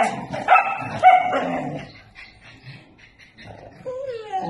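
Dogs barking in short, high yips, three in the first two seconds, then a longer whining call that wavers in pitch near the end.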